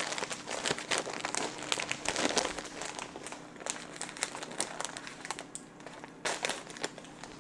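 Stuffing-mix bag crinkling and crackling as hands work at it to get it open: irregular crackles throughout, with a few sharper ones near the end.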